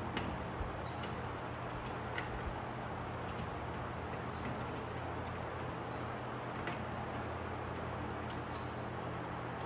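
Scattered light clicks and taps from hand work on wheel hardware, over a steady low hum. The clicks come singly at uneven intervals, several in the first two and a half seconds and one near the seven-second mark.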